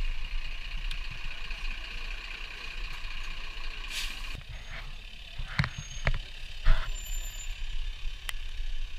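Emergency vehicles driving slowly past: a steady low engine and road rumble, with a steady high whine that stops abruptly about four seconds in, and three sharp knocks in the second half.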